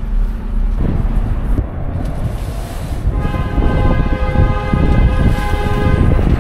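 Strong wind buffeting the tent and microphone with a heavy low rumble. From about three seconds in, a steady multi-tone whistling note, like a distant horn, sounds over the wind and holds on.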